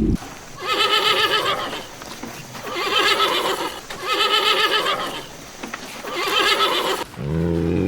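A farm animal calling four times, each call lasting about a second and wavering in pitch.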